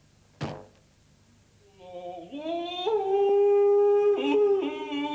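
A short twang as a thin wire is plucked. Then a man sings loudly, rising to one long held note and stepping down to lower notes near the end.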